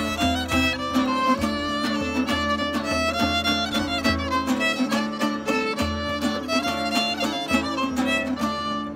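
Instrumental folk tune: a fiddle plays the melody over a picked lute-like string instrument and a hand drum beating time.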